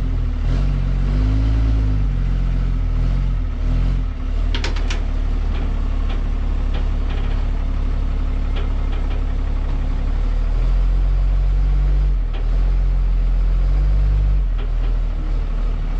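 4th-gen Ram's 6.7-litre Cummins turbo-diesel running at low revs while the truck creeps up the trailer ramps in four-wheel drive, its note rising and falling with short pulses of throttle. A few sharp clicks come about four and a half seconds in.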